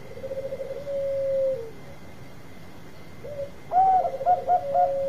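Zebra doves (perkutut bangkok) cooing. A trilled coo runs into a long held note at the start. About three seconds in, a second song with the same trill and long note is overlapped by a higher-pitched dove calling in short, clipped notes.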